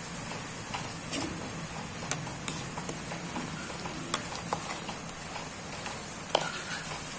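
Chicken and vegetable stew simmering in a steel pot, a steady bubbling hiss dotted with scattered sharp ticks and pops. A ladle stirs through it in the second half.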